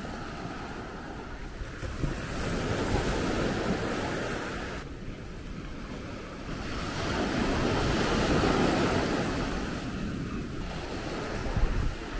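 Sea waves washing up on a beach, swelling twice, with wind buffeting the microphone.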